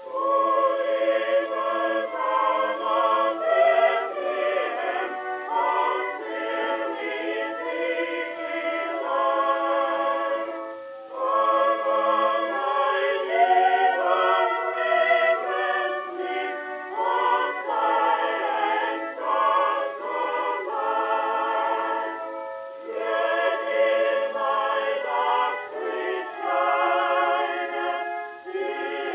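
Background music: a choir singing in long held, wavering notes, with short breaks between phrases.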